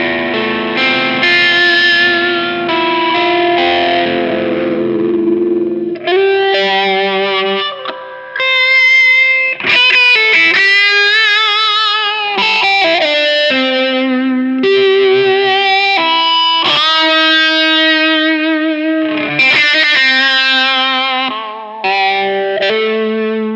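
Electric guitar played through an All Pedal Macrodose envelope filter pedal: a dense strummed passage for about six seconds, then single-note lead lines with held notes and vibrato.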